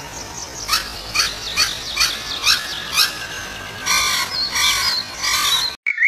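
Bird calls. First comes a run of about five quick, falling chirps, roughly two a second, then two or three longer, harsher calls. The sound cuts off abruptly just before the end.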